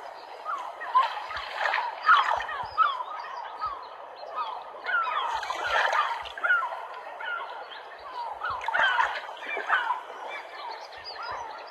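A flock of waterbirds calling: many short, overlapping calls in a dense chatter, over water splashing.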